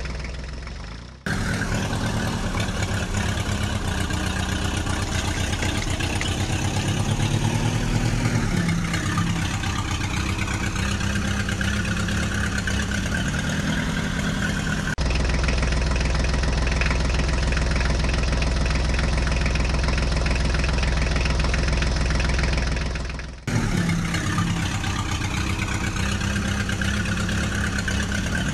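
Tractor engine sound running with an even low pulsing, its pitch rising and falling briefly about eight seconds in. It fades and cuts back in abruptly about a second in and again near the end, and changes suddenly to a steadier, deeper tone about halfway through.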